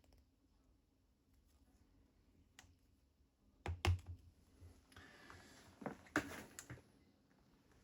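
Small metal lathe accessories being handled and set down: a few light clicks and knocks, the loudest pair nearly four seconds in, then a short scraping rustle with more clicks.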